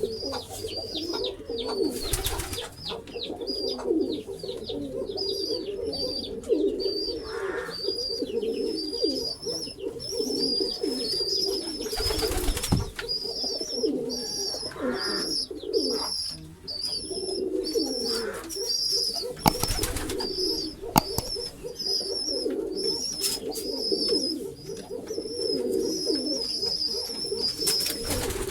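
Several domestic pigeons cooing without a break, their calls overlapping and gliding up and down. A high, rapid chirping runs over the cooing throughout, and a few brief rustling noises break in.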